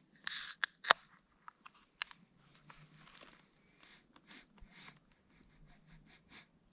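A beer being opened: a short, loud hiss of escaping gas about a quarter second in, then a couple of sharp clicks and scattered faint taps and clicks from handling it.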